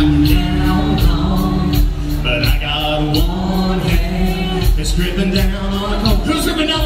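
Live band playing a song on acoustic and electric guitars, bass and drums, with a steady drum beat.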